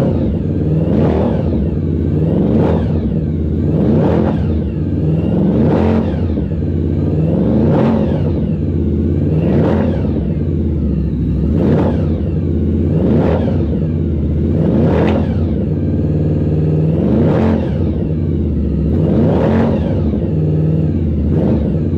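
Supercharged Honda VFR750 drag bike's V4 engine running and being revved over and over, about one blip every two seconds, each rising and falling in pitch.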